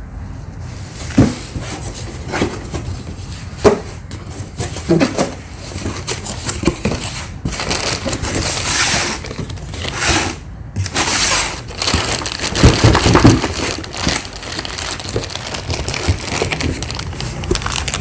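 Packaging around a new trim part being torn open and handled: irregular crinkling and rustling with sharp clicks and snaps, busiest and loudest about halfway through.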